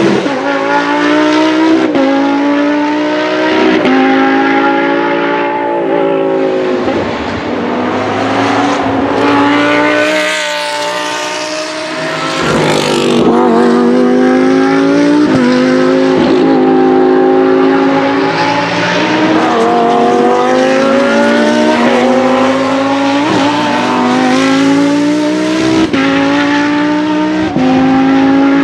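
V10 engine of a Lamborghini Huracán LP 620-2 Super Trofeo race car at full throttle on track, its pitch climbing and snapping back down again and again with quick upshifts through the sequential gearbox. The sound fades somewhat for a few seconds around the middle, then swells again.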